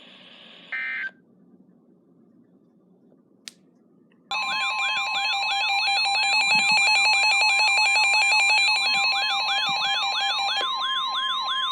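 A short burst of SAME/EAS data tones about a second in. After a few seconds of quiet, the NOAA Weather Radio 1050 Hz warning alarm tone comes on with a warbling alert siren over it, rising sweeps about three a second, announcing a new severe thunderstorm warning. The siren stops about ten and a half seconds in, leaving the steady tone.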